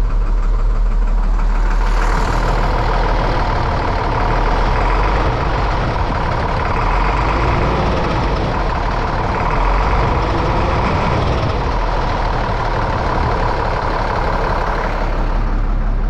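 International DT466E diesel engine of a 1998 International 4700 truck idling steadily, running smooth, with a steady whine over the low rumble. It now starts and runs after the missing quarter-inch check ball in the high-pressure oil pump's ferrule plug was replaced, which had caused a no-start.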